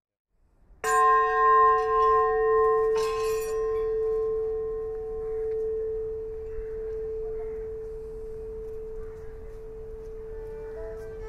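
A struck metal bell rings out about a second in, holding one strong steady tone with several higher overtones that fade slowly. A second, lighter stroke comes about three seconds in.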